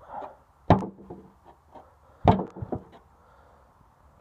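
A homemade knife's point being driven into the side of a rusty sheet-metal barrel: two hard strikes about a second and a half apart, each followed by a few lighter knocks.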